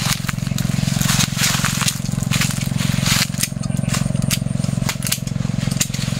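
Hand pruning shears cutting through small jackfruit shoots and branches: a run of sharp snips and crunching cracks. A steady low hum runs underneath.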